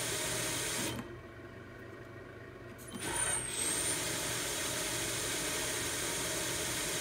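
VFD-driven spindle motor of a Grizzly G0704 CNC mill running, then cutting off about a second in. Near three seconds it starts again with a short high whine that glides in pitch, then settles into a steady run. This is the little squeak the owner hears only at start-up, as the drive's frequency blips before the spindle catches and takes off; he is not sure it is even a problem.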